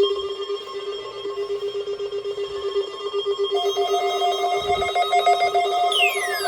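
Weather alert radio receivers sounding their alarms, set off by the weekly test signal: a rapidly pulsing electronic beep tone, joined by a second, higher pulsing tone about halfway through, with falling siren-like sweeps starting near the end.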